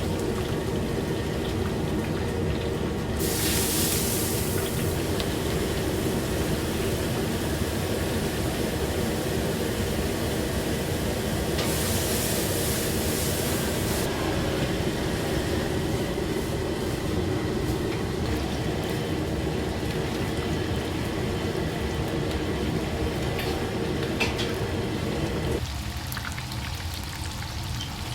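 Restaurant kitchen noise: a steady rushing hiss over a low hum, with two brief bursts of louder hiss, one about three seconds in and one about twelve seconds in. The low hum drops away near the end.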